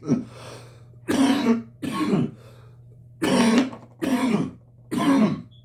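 A man coughing in a run of about six short coughs, each followed by a brief pause, after exhaling a hit of marijuana smoke.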